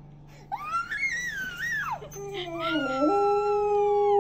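Dog howling on cue: a wavering, rising cry that settles into a long, steady howl.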